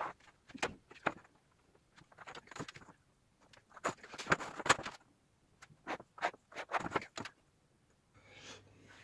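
A steel ruler clacking and sliding on a 20 mm plywood sheet in a series of sharp knocks, with a pencil scratching a line along its edge for about a second near the middle, while the cut is being marked out.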